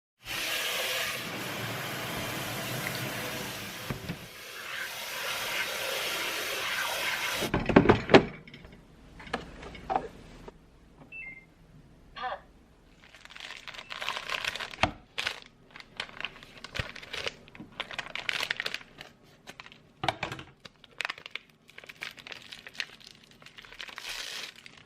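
Kitchen handling sounds: a steady rushing hiss for about seven seconds, then a loud clatter and a run of small knocks, clicks and rustles.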